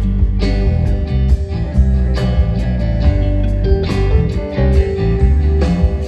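Live band playing a rock song: plucked guitar notes over a heavy bass line, with sharp beats at a steady rhythm.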